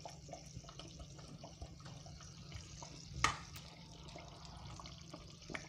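Faint crackling and sizzling of a hot-oil tadka, with whole red chillies and curry leaves, as it is poured from a small pan into the kadhi. There is a sharp knock a little past halfway, and a lighter one near the end.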